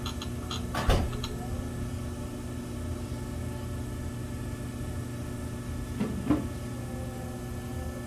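Electric potter's wheel running with a steady low motor hum while clay is shaped on it. Two brief soft knocks, one about a second in and a smaller one about six seconds in.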